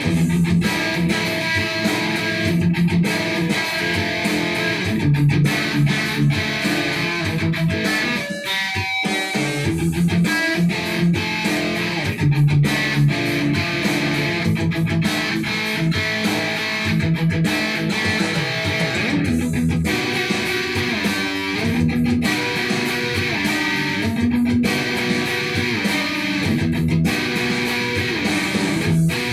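Electric guitar played in a free, improvised run of notes and chords, with a brief falling pitch glide about eight seconds in.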